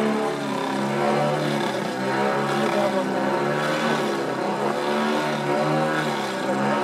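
Radio-controlled Extra 300 aerobatic model plane's motor running in flight, its pitch rising and falling with repeated throttle changes during the manoeuvres.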